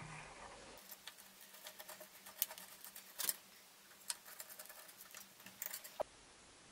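Faint, irregular small metallic clicks and taps of hand-fitting work on a moped's rear chain tensioner and axle.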